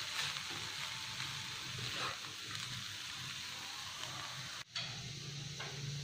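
Wooden spatula stirring fried rice in a hot wok just after the burner is turned off: a faint steady sizzle with soft scrapes and stirs. A brief dropout comes about two-thirds of the way through.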